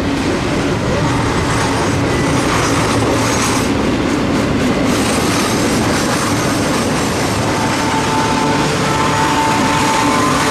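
Norfolk Southern freight train rolling past close by, a steady loud rumble of steel wheels on rail. A thin high squeal joins about eight seconds in.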